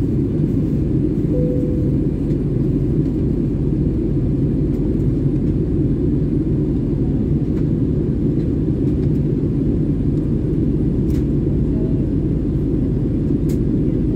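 Steady low drone of a jet airliner in flight, heard from inside the passenger cabin: engine and airflow noise.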